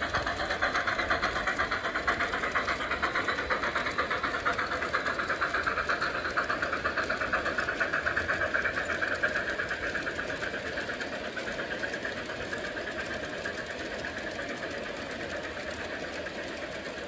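G-scale model freight train rolling along garden railway track: a rapid, continuous clicking of wheels on the rails with a mechanical whir, slowly growing fainter as the train moves away.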